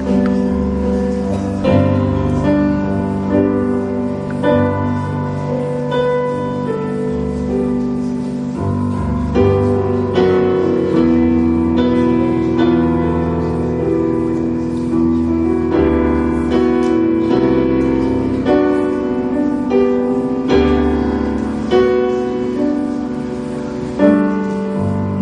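Digital stage keyboard played in a piano voice, without singing: slow, sustained chords over held bass notes, with a new chord struck every second or two.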